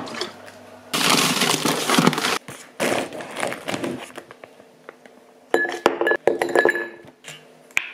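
A plastic bag rustling, then ice cubes dropped with tongs into a wine glass, clinking against it several times with a short ringing note.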